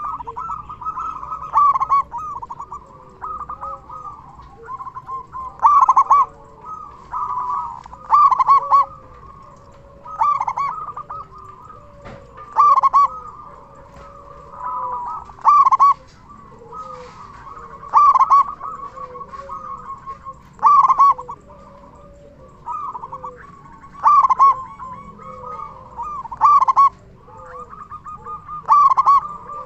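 Zebra dove (perkutut) cooing repeatedly, a loud burst of coos every two to three seconds over softer continuous cooing.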